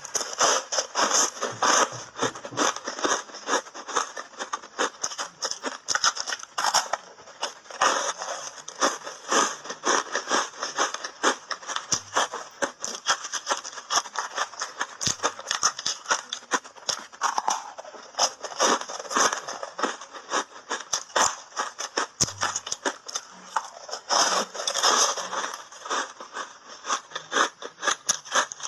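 Crunchy, foamy reshaped ice coated in matcha powder being bitten and chewed close to the microphone: a dense run of crackles and crunches, with louder bursts every few seconds as fresh bites are taken.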